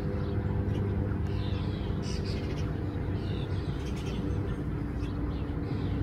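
House sparrows chirping in short bursts about once a second, over a steady low hum.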